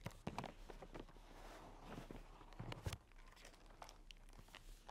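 Faint rustling and soft handling knocks of a hardcover picture book being opened and its pages turned, with a couple of slightly louder knocks a little under three seconds in.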